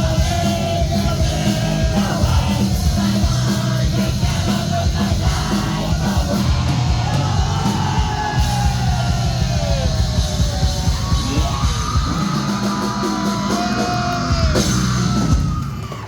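Punk rock band playing live, with loud guitars, bass and drums under yelled vocals. The heavy low drumming thins out about twelve seconds in, and the music breaks off near the end.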